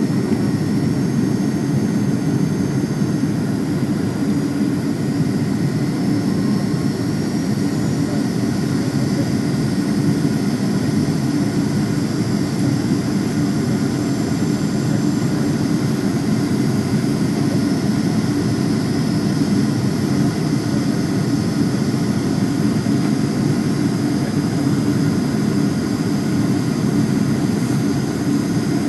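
Steady cabin noise of an airliner in flight, low on its approach to land: a deep, even rush of engine and airflow noise with a faint, steady high whine from the engines.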